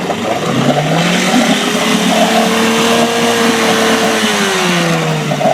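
Two-stroke Evinrude outboard motor running, its pitch rising over the first couple of seconds as it speeds up, holding steady, then dropping back after about four seconds.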